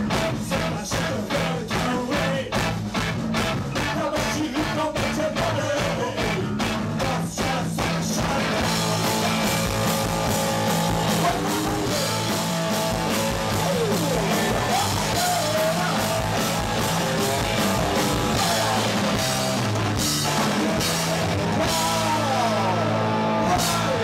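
Punk rock band playing live: drums, distorted electric guitars and a male singer. A steady pounding beat opens, then a dense wall of guitar with singing, and the song stops suddenly at the very end.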